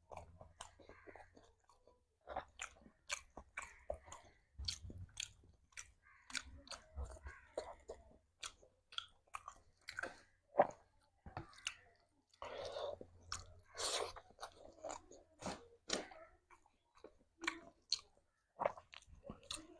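Close-miked eating: a person chewing a mouthful of food, with many sharp, irregular mouth clicks and smacks.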